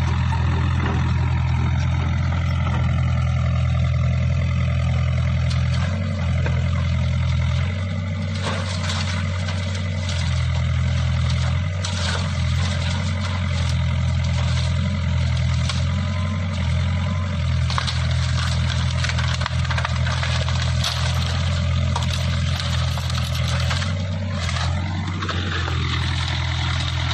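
Excavator diesel engine running steadily under load while its hydraulic bush-crusher head works. From about eight seconds in, repeated sharp cracks and knocks are heard over the drone, from branches and shrubs being crushed.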